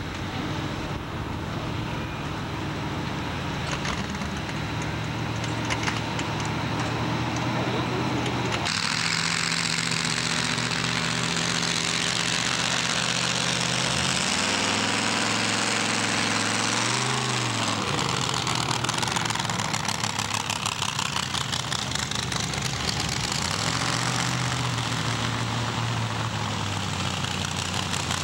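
Pickup pull truck's engine running at low revs, with a sudden change in the sound about a third of the way in. Around halfway the engine pitch climbs and then drops back as the truck is driven up onto wooden ramps, before settling again.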